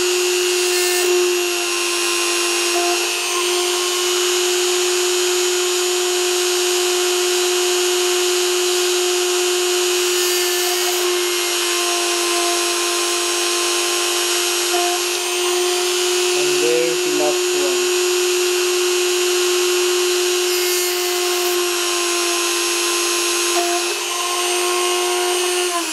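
Dremel rotary tool running steadily with a high whine, its 0.8 mm bit drilling holes in a printed circuit board.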